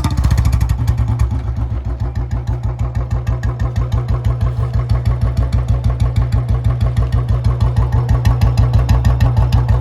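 2014 Royal Enfield Bullet 350 Standard's single-cylinder engine idling just after starting, a steady, even dug-dug thump of several beats a second.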